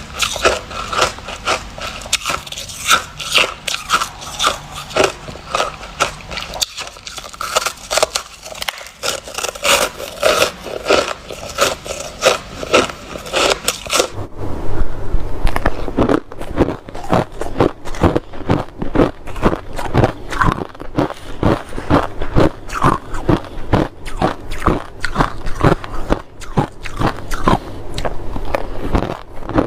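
A person biting and chewing crunchy white snow ice close to the microphone, a dense run of crackling crunches. About halfway through, the crunching turns heavier and more even, a few chews a second.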